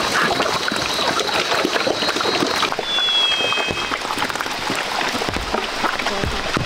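A herd of black pigs eating wet feed from a trough: dense, continuous slurping, smacking and chewing. A thin steady high tone fades out nearly three seconds in, and a brief high two-note whistle follows just after.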